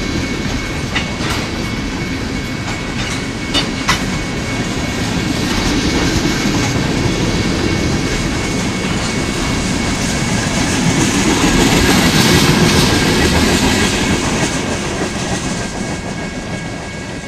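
Freight train tank cars rolling past: a steady rumble of wheels on rail, with a few sharp clicks over rail joints in the first four seconds and a thin, steady high squeal. The sound builds to its loudest about two-thirds of the way through, then eases off.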